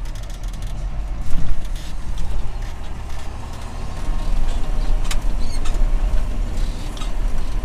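John Deere 6920 tractor's six-cylinder diesel engine working steadily under load, heard from inside the cab, pulling a seed-drill combination. A few sharp knocks and rattles cut through, the loudest about a second and a half in, and the engine grows louder about halfway through.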